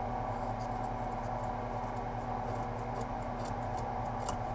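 Scissors snipping through woven exhaust header wrap: a run of faint, crisp little clicks over a steady low hum.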